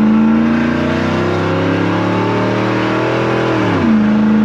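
Car engine pulling under acceleration, its pitch rising slowly, then falling away near the end as the revs drop and settling on a steady lower note.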